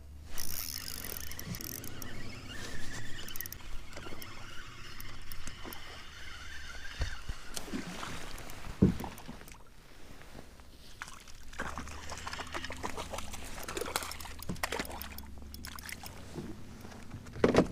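Water splashing and sloshing against a fishing kayak, irregular throughout, with a sharp knock about nine seconds in and another near the end.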